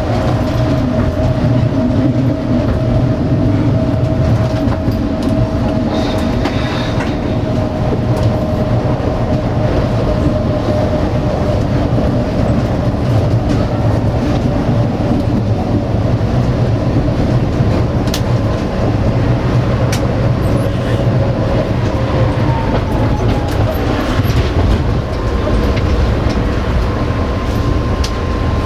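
Tatra T4D tram running along street track, heard from the driver's cab: a steady low rumble of wheels on rail with a motor whine that slowly falls in pitch. A higher whine rises and holds about two-thirds of the way in, and there are occasional sharp clicks over the rail joints.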